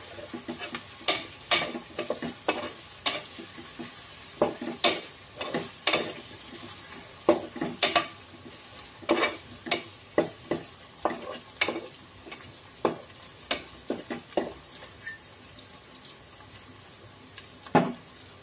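A spatula scrapes and knocks against a metal pot, stirring onions, green chillies and curry leaves that are sautéing with a faint sizzle. The strokes come irregularly, thin out in the last few seconds, and one last knock comes near the end.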